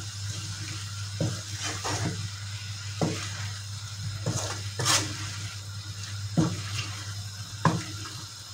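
Wooden spatula stirring shrimps and vegetables in a frying pan, with irregular scrapes and knocks against the pan over a light sizzle and a steady low hum.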